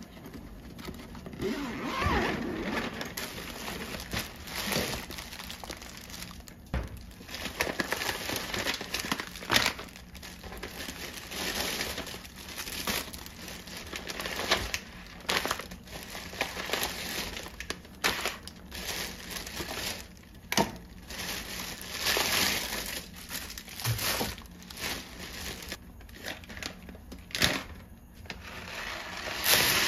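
Plastic bags and grain packets crinkling and rustling in irregular bursts as they are handled and unpacked.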